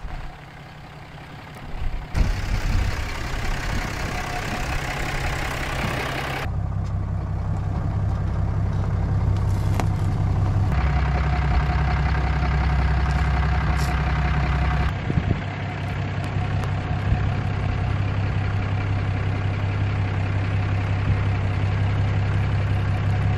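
Diesel Ram 2500 pickup's Cummins inline-six engine running steadily at low speed and idle, a deep continuous drone whose sound shifts abruptly a few times.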